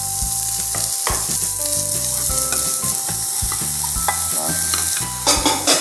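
Broccoli florets sizzling in a hot frying pan while a wooden spatula stirs them. Near the end, sliced zucchini is tipped in and the sizzle crackles louder.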